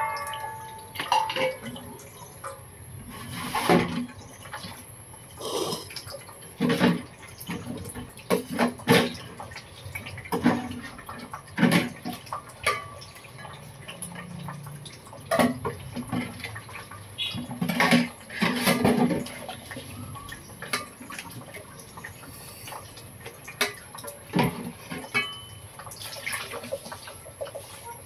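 A ringing metal clank, then a rice paddle scooping and turning cooked glutinous rice in an aluminium pot: irregular soft knocks and scrapes against the pot, with wet, sticky squelches from the rice.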